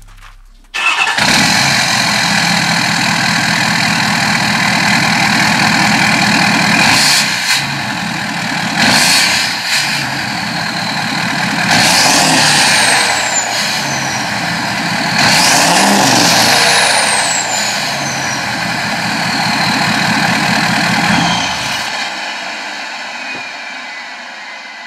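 Ford Super Duty Power Stroke diesel truck engine starting about a second in, idling, and revved several times through a large chrome exhaust tip, with a high turbo whistle falling away after the bigger revs. The engine shuts off near the end and the turbo whine winds down.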